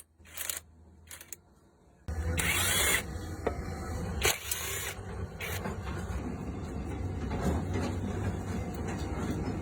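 A few light clicks, then about two seconds in a vehicle engine comes on abruptly and runs steadily with a low hum and occasional knocks, as the engine is run after a turbocharger replacement.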